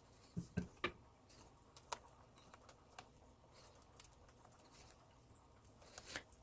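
Spoon stirring a thick gochujang marinade in a bowl: faint, scattered clicks and taps of the spoon against the bowl, several close together in the first second.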